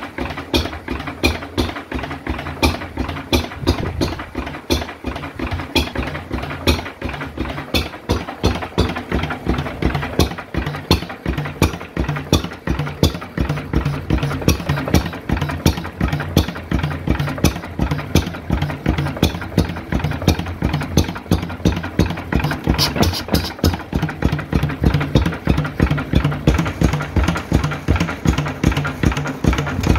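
Lister 3 hp side-valve stationary engine running at a steady speed: a regular, even beat of firing strokes with the clatter of its valve gear.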